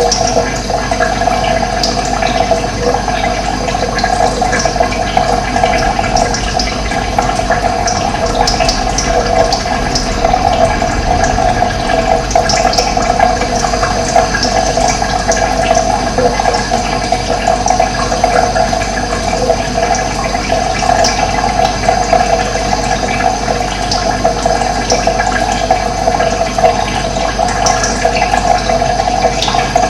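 Running water: a steady, unbroken rushing flow.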